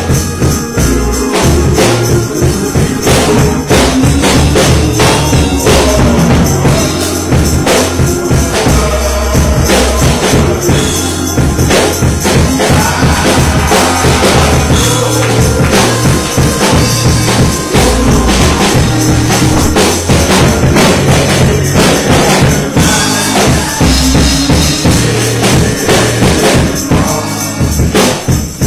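Loud live gospel music in a church: a steady beat of jingling, struck percussion over a heavy, stepping bass line, with keyboard.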